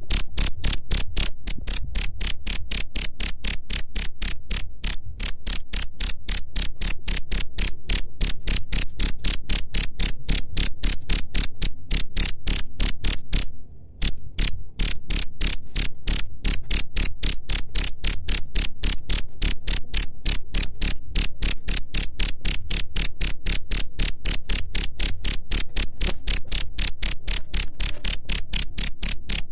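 Cricket chirping: a loud, high, rapid train of evenly spaced chirps that breaks off for a moment about halfway through, then resumes.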